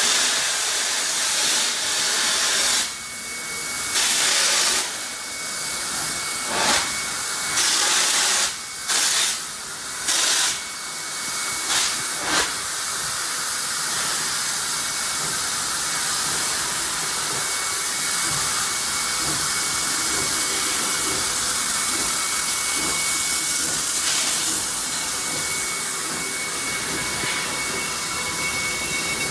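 NSWGR D59 class steam locomotive 5917 moving slowly off, with steam hissing from beside its cylinders. For about the first twelve seconds the hiss comes in loud bursts broken by short gaps, then it settles into a steady hiss with a faint high steady tone.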